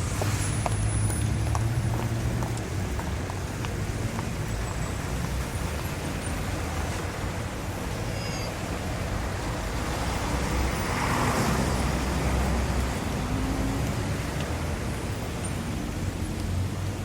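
City street traffic: a steady low rumble of passing cars and engines, swelling about eleven seconds in as a vehicle goes by.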